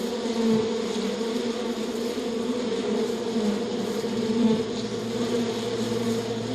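Flying insect's wings buzzing steadily at close range, the pitch wavering slightly as it moves; a lower steady hum joins about five seconds in.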